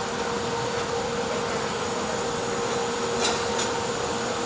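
Stick-welding (shielded metal arc) arc burning steadily with a continuous frying crackle, fed by an inverter welding machine.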